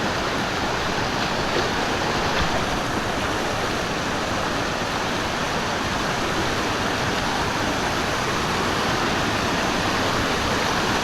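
Water of a stream rushing steadily, an even unbroken rush.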